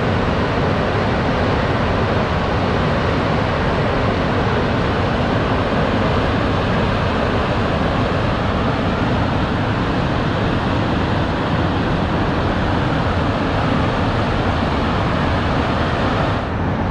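Water jetting from Miyagase Dam's low-level regular flood spillway outlet and churning in the concrete stilling basin below during an inspection discharge: a loud, steady rushing noise.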